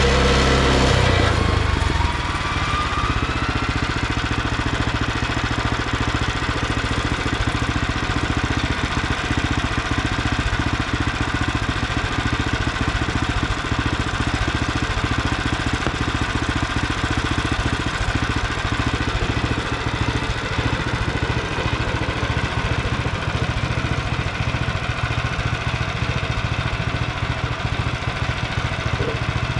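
Small gasoline engine of a bandsaw sawmill running. It winds down from higher speed in the first couple of seconds, then runs steadily at idle.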